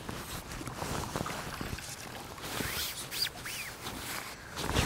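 Water splashing and dripping as a hooked F1 carp is drawn into a landing net and lifted out, with a louder splash or knock near the end.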